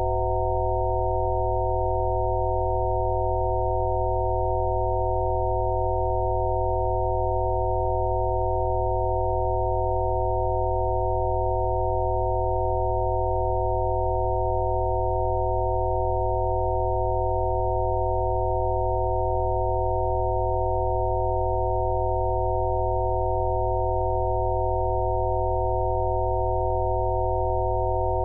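Electronically generated Rife-frequency sine tones: several pure steady tones sound at once, from a deep hum up to a fairly high tone, held without any change.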